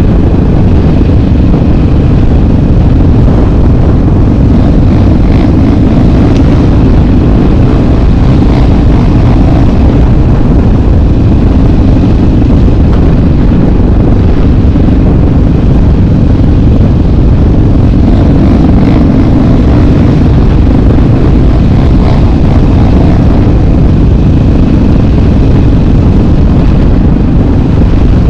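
Single-cylinder four-stroke sport ATV running under way, its engine almost buried under loud, constant wind buffeting on the action camera's microphone.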